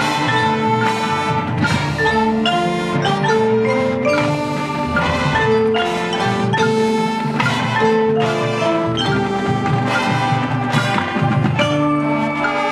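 Marching band playing, with the front ensemble's marimbas and other mallet keyboards loudest, striking a steady run of quick notes over the winds and drums of the rest of the band.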